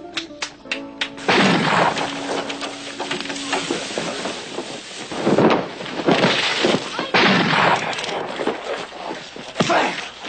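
A run of loud crashes and booms, the first about a second in and several more through the rest.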